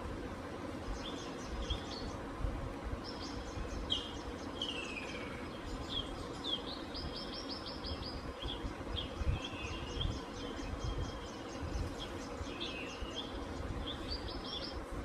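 Birds chirping and trilling in a wildlife video's soundtrack, played through the Vision 43-inch Android TV's speakers. The birdsong comes in short runs of quick, repeated high notes, with a few falling calls, over a low steady rumble.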